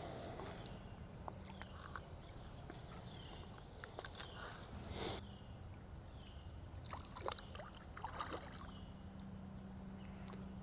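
Faint outdoor creek-side quiet with scattered small clicks and handling noises, and a brief swish about five seconds in.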